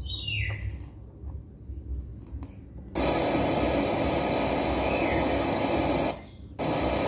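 Car audio amplifier channel suddenly passing sound to its speaker as a loud steady hiss of static about three seconds in, cutting out briefly and coming back. It comes as the volume potentiometer's pins are bridged with pliers, showing that the signal is blocked at that potentiometer, whose wiper no longer contacts the carbon track.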